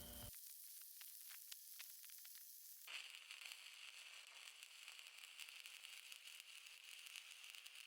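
Faint crackling and sizzling of a stick-welding arc burning a 3/32 7018 low-hydrogen electrode on mild steel: irregular crackles for about the first three seconds, then a steady faint hiss.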